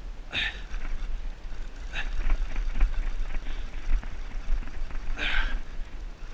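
Steady low wind rumble on the camera microphone, with a few short louder bursts about half a second, two seconds and five seconds in while a fish is being fought from the kayak.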